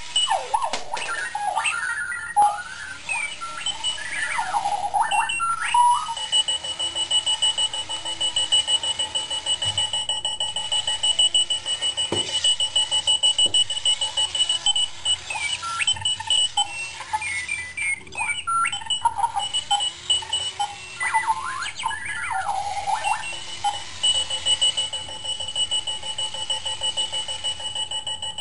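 Nanda Clocky runaway alarm clock's electronic alarm ringing: a rapidly pulsing high beep, broken several times by bursts of warbling chirps that glide up and down in pitch.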